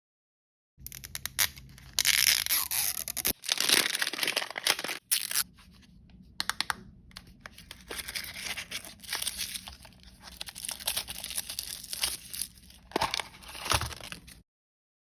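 Blind-bag packaging being torn open and crinkled by hand: a run of crackly tearing and rustling with sharp crinkles, loudest a few seconds in and again near the end. It starts abruptly after a short silence and cuts off abruptly shortly before the end.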